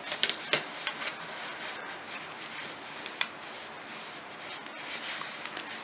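Metal knitting needles clicking lightly and irregularly as stitches are knitted, a handful of small ticks with a sharper one about three seconds in, over a steady faint hiss.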